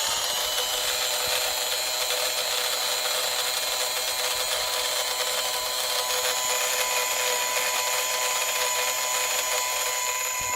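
Small electric motor and fan of a Modern Toys floating-astronaut space capsule toy running steadily with a high whine, blowing the air stream that holds the astronaut afloat.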